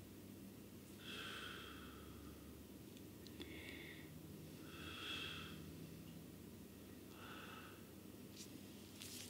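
A person breathing sharply through the nose four times, about every two seconds, faint. A few small clicks near the end.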